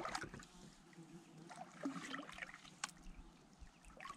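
Faint water trickling and lapping around a kayak, with a few light clicks and knocks scattered through, one sharper click near three seconds in.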